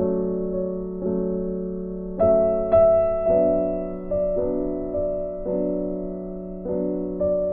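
Background music: slow piano chords, a new chord struck about once a second and left to ring.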